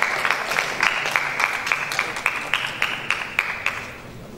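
Audience applause, a dense patter of many clapping hands, dying away near the end.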